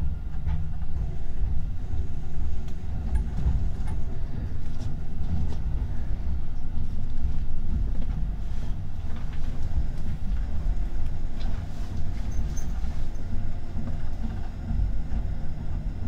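Electric commuter train running at reduced speed under a strong-wind restriction, heard from inside the cab: a steady low rumble of wheels on rail with a few faint clicks.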